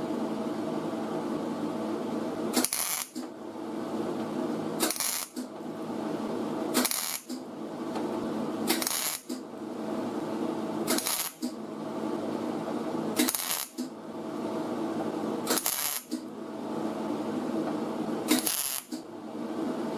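MIG welder stitch-welding a butt joint in auto body sheet metal: a run of short welds of about two seconds each, with a brief break between them, about eight in all.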